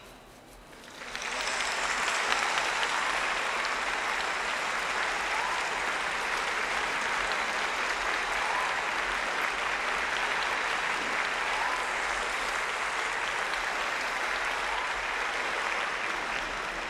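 Applause that starts about a second in, holds steady and fades near the end.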